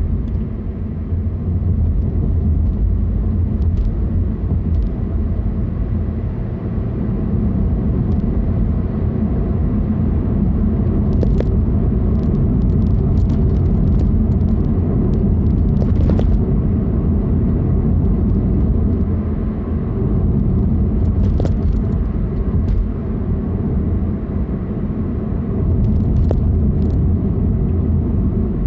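A car driving on the road: a steady low rumble of engine and tyre noise, with scattered faint clicks here and there.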